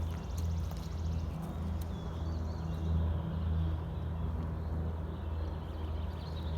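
Forest ambience dominated by a steady low rumble, likely wind on the microphone, with faint bird chirps and a rapid high trill near the start and again around two seconds in.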